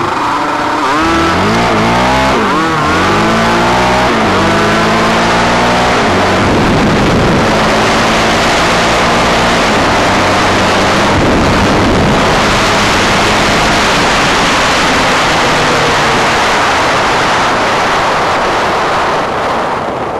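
Sport quad engine at full throttle, climbing in pitch through several gear shifts over the first five seconds or so. It then runs flat out at a steady pitch under heavy wind rush on the microphone, and drops away near the end.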